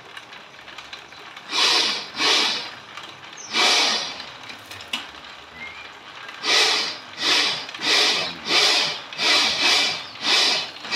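Bamboo strips scraping through the blade and rollers of a motor-driven bamboo strip-slicing machine as they are fed and drawn out by hand. A few separate scrapes at first, then a regular run of them about every half second from about six seconds in.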